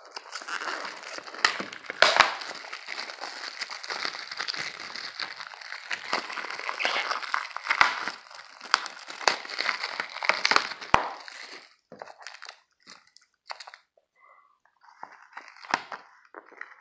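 Clear plastic shrink wrap being peeled and crumpled off a Blu-ray case: dense crinkling for about eleven seconds, then only scattered crackles and clicks.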